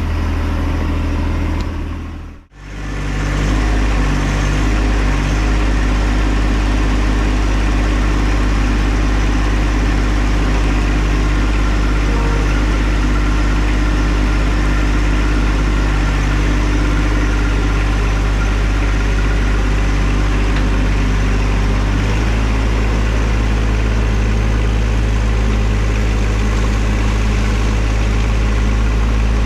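John Deere 1025R compact tractor's three-cylinder diesel engine running at a steady speed, with a brief dropout about two and a half seconds in.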